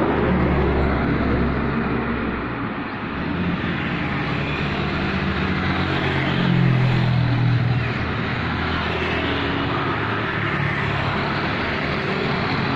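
Road traffic: engines of motor vehicles passing by, loudest about six to seven seconds in.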